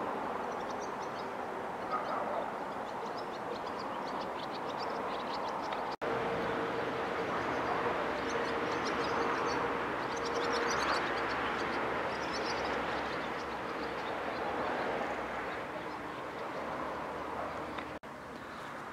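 Steady rushing outdoor background noise with faint high chirping over it, and for a few seconds a low steady hum. The sound drops out for an instant twice.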